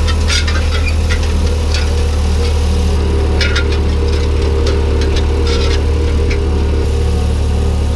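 Ford 4000 tractor engine running steadily at low revs, with scattered light clinks and rattles over it.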